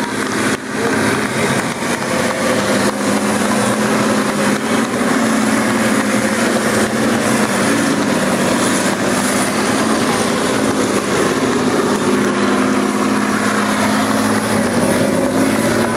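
Tanks driving past on a dirt track, their big diesel engines running steadily under load.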